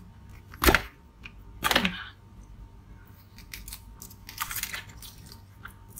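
Red plastic ice-pop mold being squeezed and twisted to free frozen ice pops: two sharp cracks about a second apart as the frozen pops break loose from the mold walls, then a few faint clicks.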